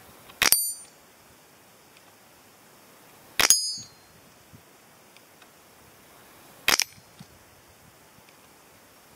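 Three shots from a Benjamin Wildfire PCP semi-auto air rifle, about three seconds apart, each a sharp crack. The first two are followed by the high metallic ring of a steel spinner target being hit; the third gives only a short crack.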